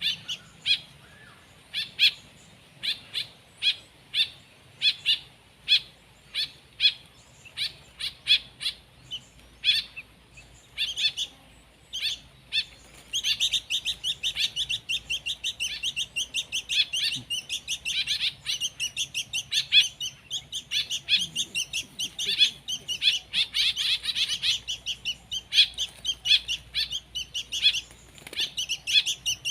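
Young songbird chicks chirping to beg for food. The chirps come singly, about one or two a second, then about halfway through turn into a rapid, continuous chatter.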